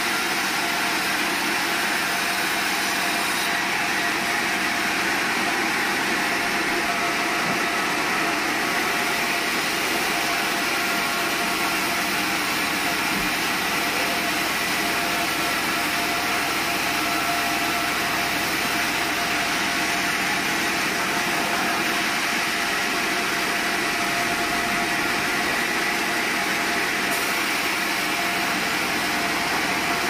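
Large sawmill band saw running steadily while a soft-wood log is fed through the blade, the saw's drive engine running under it. The noise holds one even level, with a steady whine through it.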